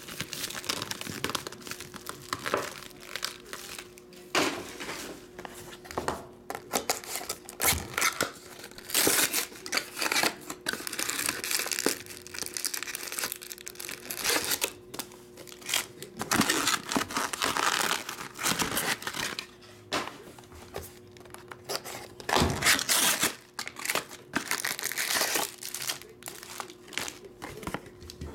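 Cardboard trading-card boxes being torn open and the packs' wrappers crinkling as they are pulled out and handled, in irregular bursts of tearing and rustling.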